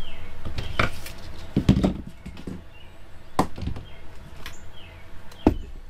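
Tools and hardware being handled on a vinyl trailer floor: a few separate knocks and clicks, with a brief clatter about two seconds in and the loudest knock near the end.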